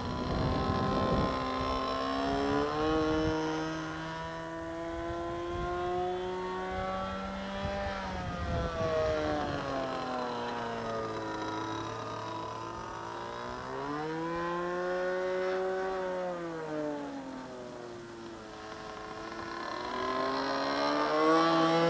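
RC Phoenix Edge 540 model aerobatic plane's engine, through a can muffler, running in flight. Its pitch sweeps up and down several times as the plane throttles and passes overhead. A low rumble sits under it for the first half.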